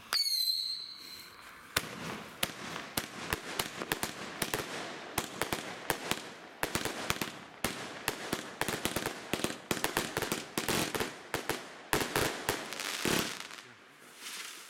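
Vuurwerkmania 'Color Explosions' compound firework cake firing. A short high whistle comes right at the start. From about two seconds in, a rapid string of shots and bursts, several a second, runs until near the end, with a denser crackling stretch shortly before it stops.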